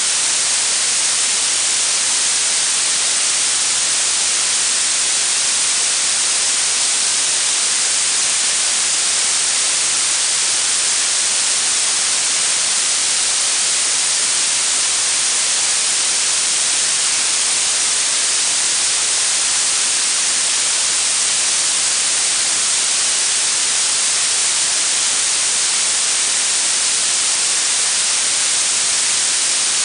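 Blue noise: a steady, even hiss weighted toward the high frequencies, with no tones, breaks or changes.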